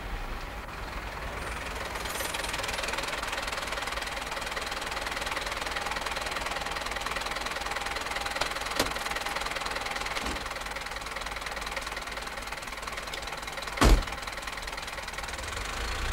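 Car engine running steadily as a taxi pulls up, a rough, noisy hum. A faint click comes about nine seconds in, and a single loud thump comes near the end.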